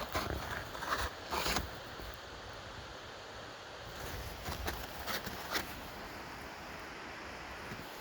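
Footsteps crunching on snow: a couple of steps about a second in, a lull, then a few more steps past the middle.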